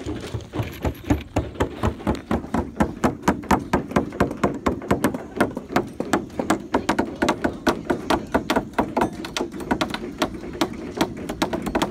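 Several claw hammers driving nails into wooden floor framing, the strikes of different hammers overlapping in an uneven, rapid clatter of several blows a second.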